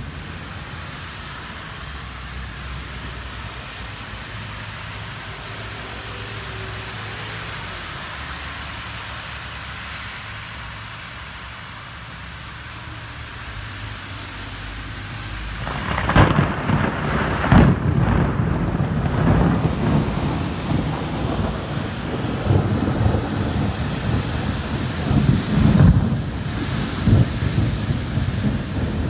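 Steady rain hiss, then just past the middle a sudden loud crack of thunder from a lightning strike that rolls on as rumbling, with further loud peaks, until the end.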